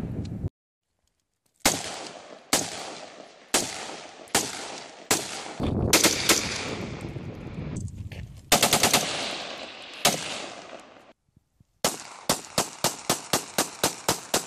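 Gunfire from semi-automatic firearms, each shot trailing off in an echo: an AR-15 rifle fired in single shots about a second apart, then a quick run of rapid shots past the middle. Near the end, after a brief gap, a Glock pistol fires fast and evenly, about four shots a second.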